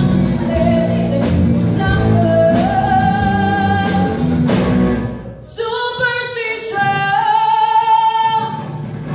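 Live band with a female lead singer: drums, bass and electric guitar under her voice. About five seconds in, the band drops out and her voice carries on almost alone, holding long notes.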